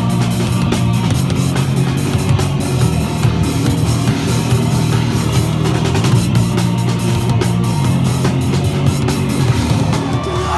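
Loud heavy rock music with a pounding drum kit and a shifting bass line.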